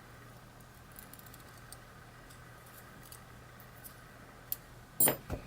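Faint scattered metallic ticks from handling the small parts of a pin-tumbler lock being taken apart, then a loud sharp click about five seconds in and a smaller one right after.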